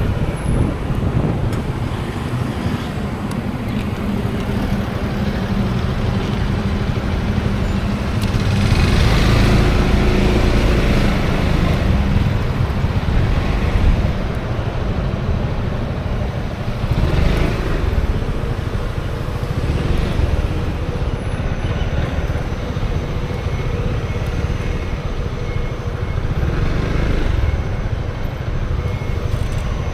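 Wind rushing over an action camera's microphone on a moving Honda Forza 350 scooter, mixed with the scooter's engine and road traffic. The noise swells louder several times, most strongly for a few seconds near the middle.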